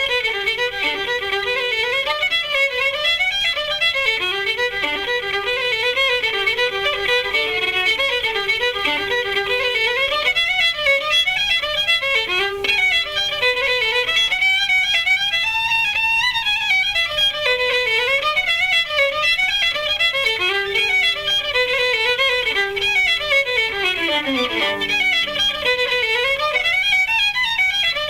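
Fiddle playing a quick Irish traditional tune, a fast stream of short, ornamented notes, with a run of notes falling in pitch near the end.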